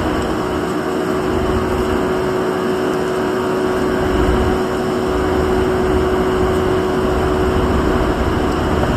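EF81 electric locomotive and its train at close range: a steady running noise with one constant humming note that stops near the end, and a low rumble that grows from about halfway.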